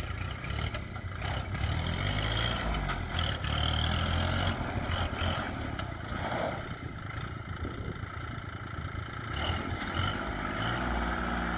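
Kubota L2501D compact tractor's 25 hp three-cylinder diesel running steadily as the tractor drives, its note shifting a little in pitch, with scattered light knocks and rattles.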